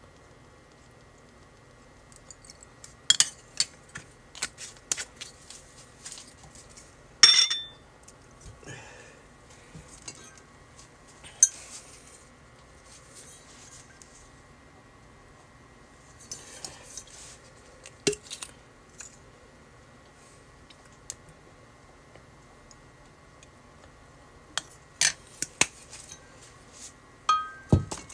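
A ceramic spoon and small ceramic sauce dishes clinking as glass sauce bottles are handled and set down. Scattered light clinks and taps come in short clusters, with a sharper ringing clink about seven seconds in.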